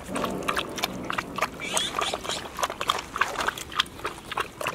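Puppy lapping water from a metal bowl: a quick, irregular run of wet clicks, several a second.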